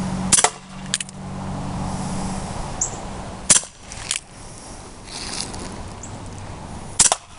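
Umarex Colt Single Action Army CO2 BB revolver firing three single shots about three and a half seconds apart. Each sharp crack is followed about half a second later by a fainter click.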